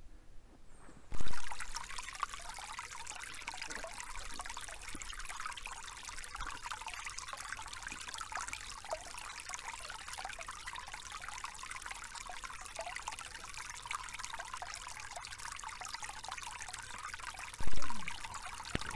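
Small woodland stream trickling and splashing over rocks, a steady rush of water. A brief loud thump comes about a second in and another near the end.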